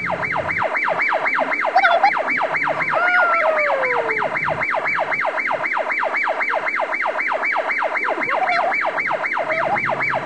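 Electronic siren in a fast yelp: a rising sweep repeated about four times a second, steady throughout.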